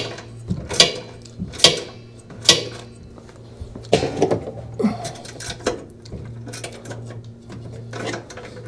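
A hand wrench is tightening a bolt on a Speed Queen washer's brake assembly, with four sharp metallic clicks about a second apart. Around the middle there is a burst of metal clinks and tool-handling noise, then quieter fiddling over a low steady hum.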